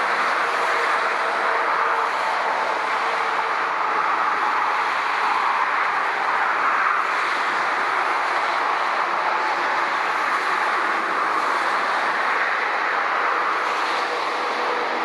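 Steady roar of an Airbus A380's four jet engines at taxi power, with faint humming tones, blended with the rush of motorway traffic.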